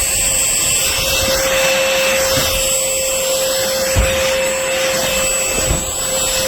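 Trucozie cordless stick vacuum running: a steady rush of suction with a constant motor whine over it, and a couple of low knocks about four and five and a half seconds in.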